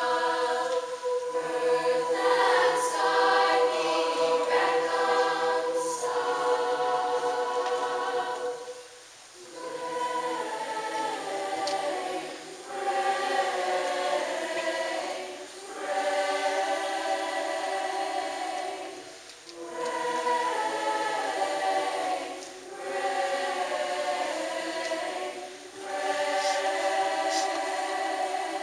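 Youth choir singing, the phrases broken by short breaths every few seconds.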